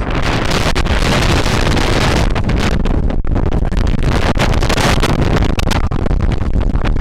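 Hurricane winds gusting near 50 mph buffeting the microphone: a loud, continuous wind rumble that dips briefly about three seconds in.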